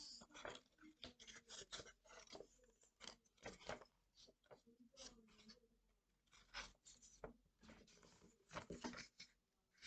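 Faint, intermittent rustling and crinkling of a sheet of folded printer paper being handled, with a quieter stretch in the middle.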